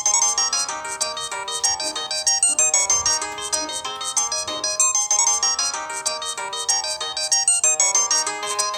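A Nokia ringtone playing as a MIDI tune on an LG B470 mobile phone: a fast, continuous run of bright notes with several parts sounding at once.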